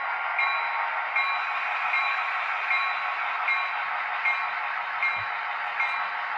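Model coal train of hopper cars rolling along the track, a steady rolling hiss with a short click about every three-quarters of a second, and one dull thump about five seconds in.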